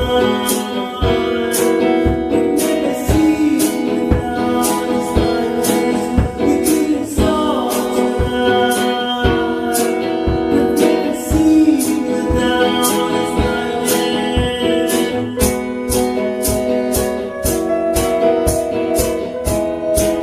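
Acoustic rock song: strummed acoustic guitar with singing and a steady percussion beat.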